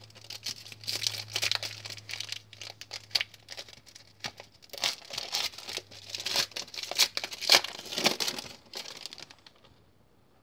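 Plastic wrapper of a 2017 Panini Score football card pack being torn open and crinkled by hand, with irregular crackling that stops about nine seconds in.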